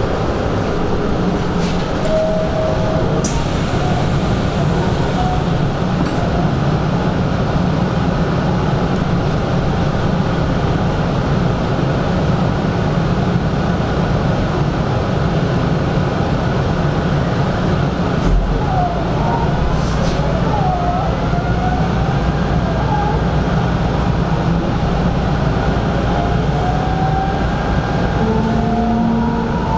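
Hanshin 5500-series electric train running on the track: a steady, even rumble, with a faint rising whine about twenty seconds in.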